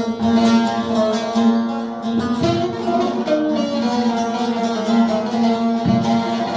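Music on a plucked string instrument: a melody of changing notes played over a steady drone note.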